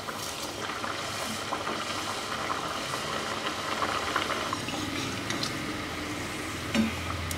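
Thekua dough pieces frying in medium-hot oil in a metal pan: a steady bubbling sizzle. Near the end a metal slotted spoon gives a brief knock as it turns a piece.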